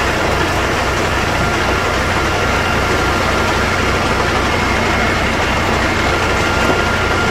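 Heavy diesel engine running steadily with a low, fast-pulsing drone: a fire appliance driving its pump to feed the hose jets. Over it is a dense, steady hiss.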